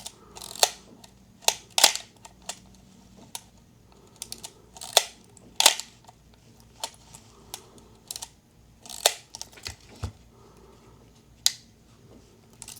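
Pentax K1000 35 mm film camera's mechanism being worked while film is loaded, giving about a dozen sharp, irregular clicks and clacks, with a duller knock about ten seconds in.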